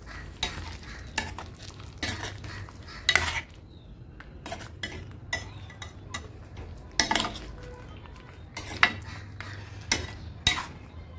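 Steel spoon stirring a thick masala gravy in a stainless steel pan, scraping and clinking against the metal in irregular strokes about a second apart, over a low steady hum. The masala is being sautéed with a little added water until the oil separates.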